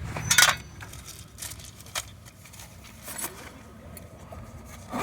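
A few short clatters and clicks of objects being handled: a louder rattle about half a second in, then a sharp click a little later and a fainter one after it, over a faint low rumble.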